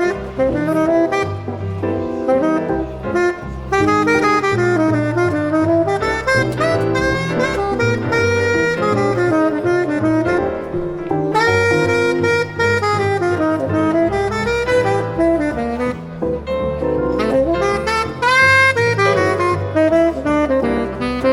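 Tenor saxophone improvising a fast jazz line over chordal accompaniment and low notes.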